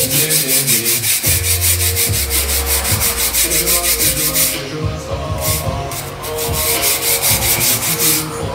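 Steel wire brush scrubbed quickly back and forth across the teeth of a metal file to clean it: fast, scratchy strokes that pause briefly about halfway through, then carry on.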